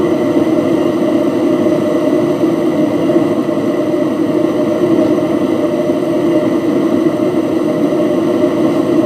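Homemade forced-air turbo stove burner running at a small flame: a steady roar of blown combustion, even in level throughout.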